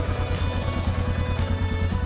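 Background music with a steady beat, about two beats a second, over a heavy, steady bass.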